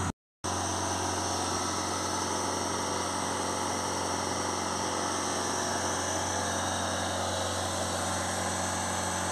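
Ford S-Max diesel engine running steadily during a forced diesel particulate filter regeneration, heard close to the tailpipe. The sound cuts out for a moment just after the start.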